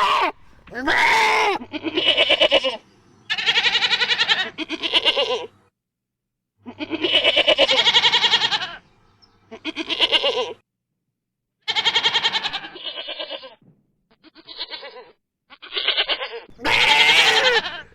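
Goats bleating: about a dozen separate quavering bleats, some loud and some fainter, with short pauses between them.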